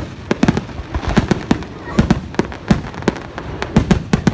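Aerial fireworks shells bursting in a rapid, irregular run of sharp bangs, several a second, some falling in quick clusters.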